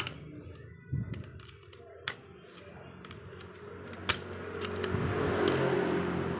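Metal clicks and clinks from a motorcycle clutch housing and its parts being handled by hand: a few sharp single clicks, the sharpest about four seconds in. Near the end a rising rush of noise swells up and eases off.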